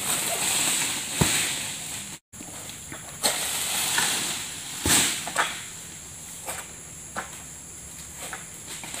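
Long-pole harvesting sickle working in the crown of a tall oil palm: rustling fronds with a series of sharp cracks and knocks, the heaviest about a second in and about five seconds in.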